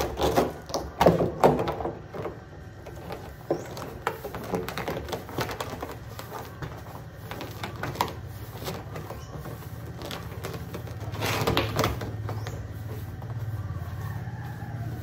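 A large plastic silage drum being tipped over and rolled on paving: irregular knocks and scrapes, loudest in the first two seconds and again about eleven seconds in, over a steady low hum.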